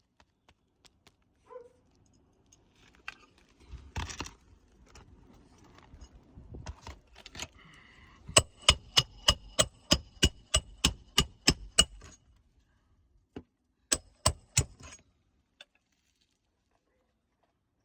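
A hammer driving roofing nails to fasten a shingle: a quick run of about a dozen ringing metal-on-metal blows, roughly three a second, then three more blows a little later. Before them come rustling and handling noises.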